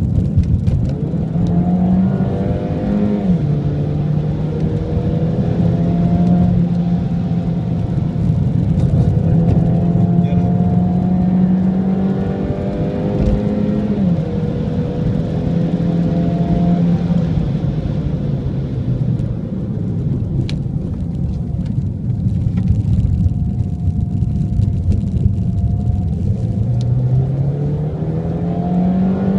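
Mini Cooper S with automatic gearbox heard from inside the cabin on a track lap. The engine note climbs under acceleration and drops sharply at upshifts about three seconds and thirteen seconds in, then falls away as the car slows for a corner. It climbs again near the end, with another drop right at the close.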